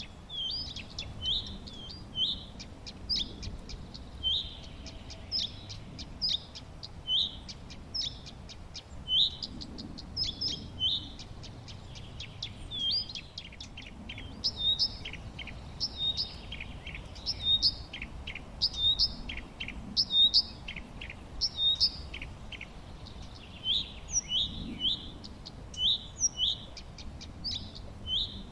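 Songbirds chirping: one bird repeats short, hooked high chirps about once or twice a second, while others add quick, thin ticking calls.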